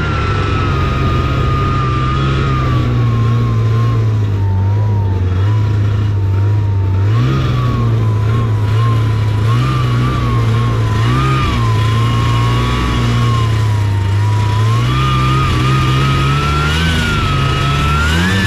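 Taiga Varyag 550 snowmobile's two-stroke engine running under way: its pitch sinks over the first few seconds, wavers with the throttle through the middle, then climbs again near the end.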